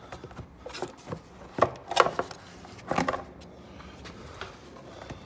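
Plastic airbox being worked loose and lifted out of a Triumph Daytona 1200's frame, giving a series of irregular knocks and clicks. The loudest knocks come about two and three seconds in.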